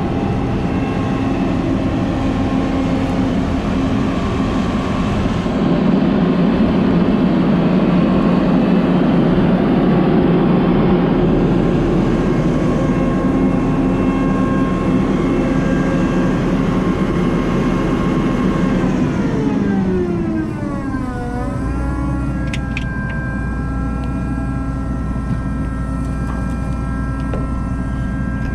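Large diesel engine running steadily at high speed, then throttled back about twenty seconds in, its pitch sliding down to a low, steady idle. A couple of faint clicks follow.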